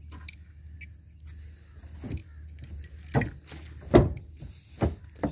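A series of irregular knocks and thumps, about five, the loudest about four seconds in, over a steady low hum.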